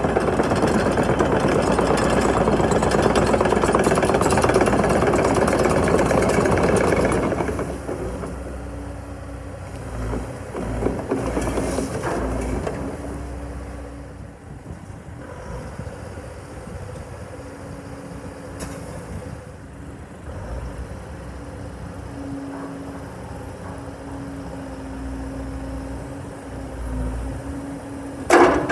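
Terex TC125 hydraulic excavator running, loud for the first seven seconds or so, then dropping to a lower, steady running sound with a low hum and a few dull knocks. There is one sharp clank near the end.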